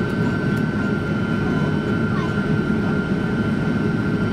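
Steady cabin drone inside a Boeing 767-300 airliner on approach: a low rumble of jet engines and airflow with a thin steady whine above it.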